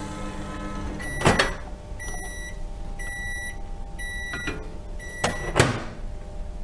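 Microwave oven finishing its cycle: a steady hum stops about a second in, then four short high beeps come about a second apart. A clunk comes just before the beeps, and a louder clunk near the end.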